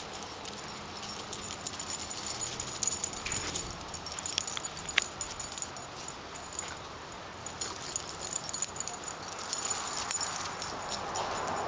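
French bulldog puppies play-wrestling on concrete: scuffling with scattered short clicks.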